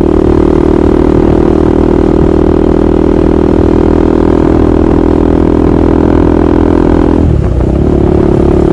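KTM Duke 390's single-cylinder engine idling steadily through its exhaust, with a brief break about seven seconds in before it carries on.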